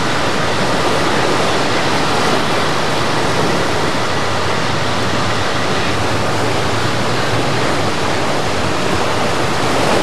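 Fast, flood-swollen creek water rushing and churning around half-submerged vehicles, a steady, unbroken noise.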